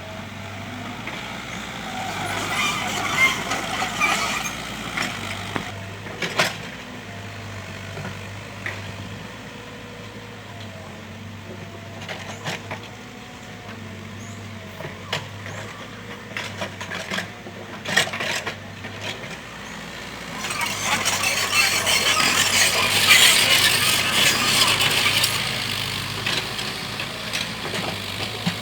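Mini excavator's engine running steadily, with scattered metallic clanks and knocks. Past the middle a louder rasping noise lasts about five seconds.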